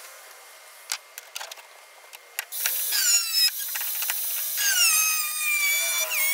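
Angle grinder with a cut-off wheel cutting steel bar stock, after a few clicks of handling. The motor's whine starts about two and a half seconds in and drops in pitch each time the wheel bites into the metal, twice.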